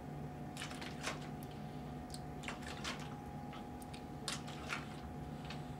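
Faint, scattered clicks and creaks from a plastic gallon water jug being curled as a hand weight, over a steady low room hum.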